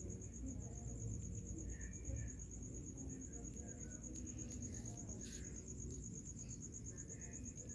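A cricket trilling: one high, rapidly pulsing tone that goes on without a break, over a faint low background rumble.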